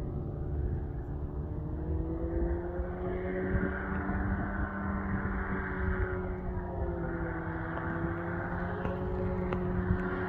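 Powered paraglider's engine and propeller droning as it comes in on final approach, its pitch wavering slightly up and down.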